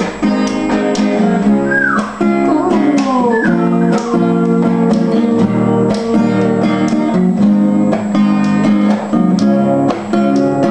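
Acoustic guitar strumming chords in an instrumental passage between sung verses, with a couple of sliding high notes about two and three seconds in.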